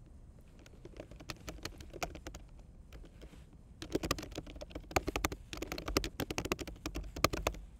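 Typing on a computer keyboard. A few scattered keystrokes come first, then a fast run of keystrokes from about four seconds in until just before the end.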